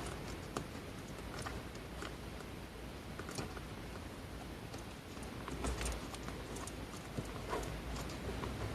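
Faint, scattered light clicks and knocks of a plastic fan mounting clamp being handled and screwed in place, over a low steady hum.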